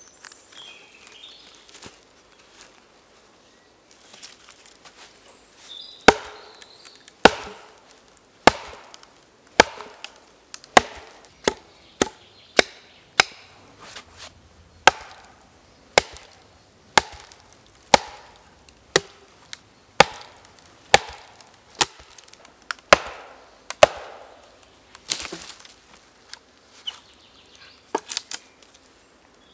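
Wooden mallet striking the back of a hatchet and wooden wedges driven into a log to split it lengthwise. Sharp wooden knocks start about six seconds in, come about once a second, and speed up into a quick flurry near the end.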